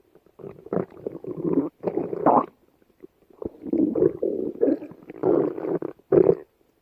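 Stomach growling: a run of irregular gurgling rumbles in several bursts, with a pause of about a second near the middle.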